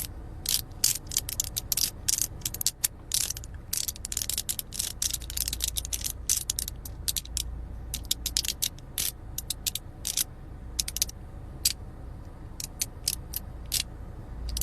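Clicky magnetic fidget sliders being slid against each other, giving irregular runs of sharp snappy, crackly clicks, sometimes clustered and sometimes single.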